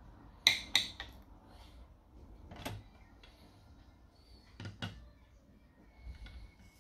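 Lab equipment set down piece by piece on a tiled bench: a glass Petri dish gives two sharp clinks about half a second in, a single knock follows a couple of seconds later, and a test-tube rack and funnel give two more knocks near the end.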